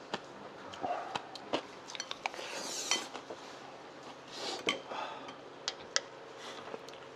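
Spoon and chopsticks clinking and scraping against bowls while eating, with scattered sharp clicks and two short rustling hisses in the middle.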